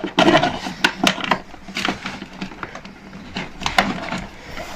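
Irregular knocking and clattering as hard parts of a ride-on toy car are handled and fitted back into place.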